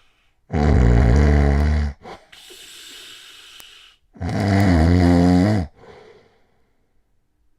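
A person snoring: two long, low snores about three and a half seconds apart, with a softer breath out between them.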